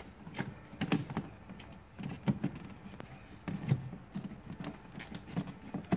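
Plastic wiper cowl cover being handled and pressed back into place, giving scattered light plastic clicks and knocks, a few of them sharper.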